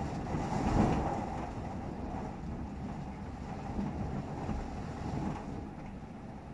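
Typhoon-force wind gusting against a building, heard from indoors through the window glass as a steady rumbling rush that swells to its strongest gust about a second in.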